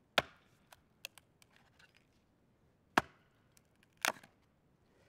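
Small axe chopping firewood on a stump: three sharp strikes, the first just after the start, then one about three seconds in and a doubled strike just after it, with lighter clacks of split wood between them.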